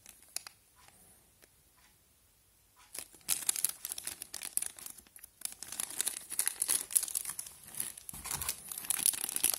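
Plastic wrapping crinkling and crackling in the hands as it is pulled off a Sony camera battery. It starts about three seconds in, after a quiet stretch with only a few faint ticks.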